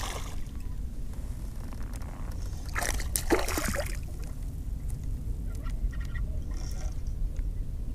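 Wind rumbling on the microphone while a hooked bass is fought on a spinning rod and reel, with a short louder burst about three seconds in.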